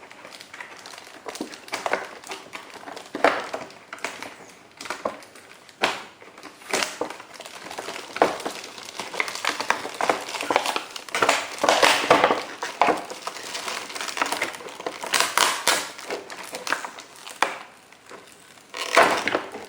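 Packaging crinkling and rustling irregularly as it is handled and unwrapped, with a few light knocks.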